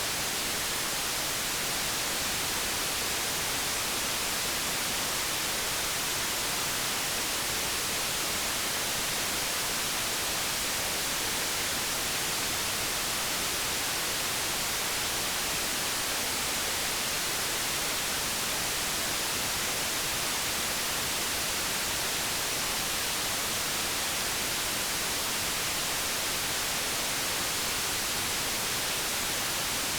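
Steady white noise: an even, unchanging hiss, strongest in the upper frequencies.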